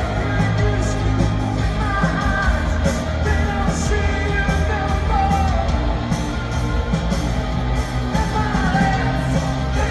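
Live rock band playing through an arena PA with a lead vocal, loud and full in the low end, heard from the crowd.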